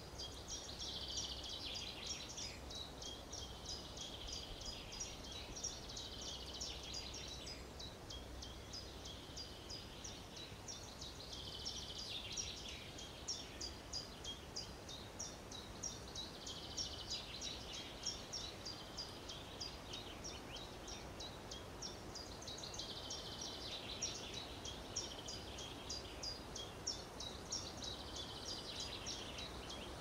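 Forest birds singing: a steady run of short, high chirps about three a second, with a longer song phrase every five or six seconds, over a faint low hum.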